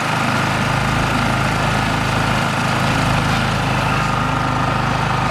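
A boat's engine running steadily at a low, even pitch, under a constant rush of noise.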